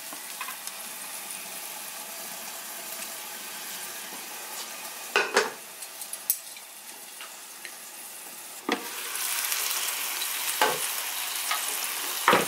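Cod fillets sizzling in butter in an electric skillet, a steady frying hiss that grows louder about two-thirds of the way in. A few sharp clinks of plates and utensils come before that, the last just as the sizzle gets louder.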